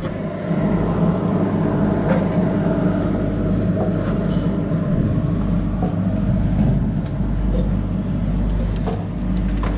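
Heavy machinery running steadily, a loud even engine-like drone, with a few faint knocks over it.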